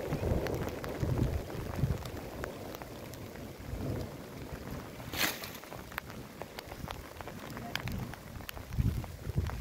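Rain falling on a plastic tarp roof: many scattered drop ticks over a steady hiss, with a low rumble that comes and goes and a brief sharp hiss about five seconds in.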